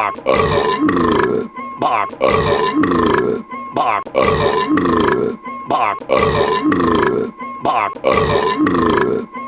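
Cartoon characters' burps, long and gurgling, in a short run that repeats about every two seconds as the same loop plays over and over.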